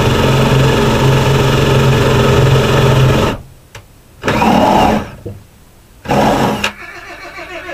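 A Ryobi cordless drill runs steadily for about three seconds and stops, then runs in two short bursts. Near the end a horse starts whinnying.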